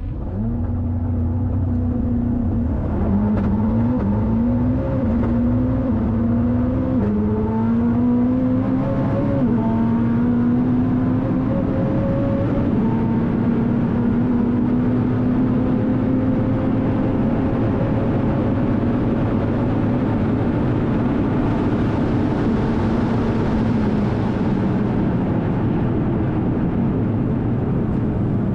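Koenigsegg hypercar V8 accelerating flat out, its note rising and snapping down through a rapid series of upshifts, then climbing slowly and steadily in a high gear at very high speed, before falling away near the end as the car comes off the throttle.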